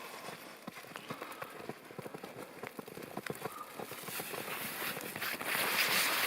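Footsteps crunching along a snowy woodland trail at a steady walking pace. Near the end a louder rustling swish joins in for about a second.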